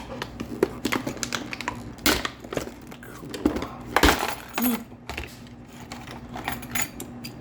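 Kwikset deadbolt and its packaging being handled: a run of irregular metallic clicks and clinks of small lock parts, with a louder clatter about two seconds in and again about four seconds in.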